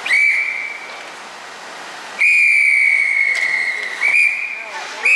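A whistle blown in three blasts at one high pitch: a short blast at the start, a long held blast of nearly two seconds from about two seconds in, and a shorter one near the end.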